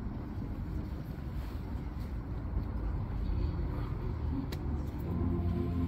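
Low, steady outdoor rumble. About five seconds in, held musical notes begin.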